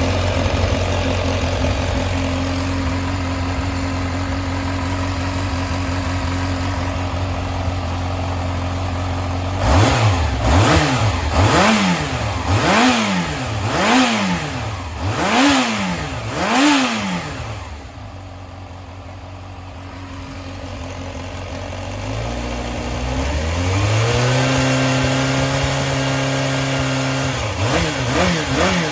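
Yamaha XJR400 (4HM) air-cooled inline-four engine idling steadily, then blipped about six times in quick succession, settling back to a quieter idle, then held at a raised speed for a few seconds before more blips near the end. The seller describes it as running very well, with no abnormal noises.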